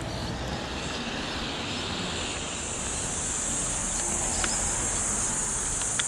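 Steady high-pitched insect shrilling that sets in about two seconds in and holds, over a low, even background rumble.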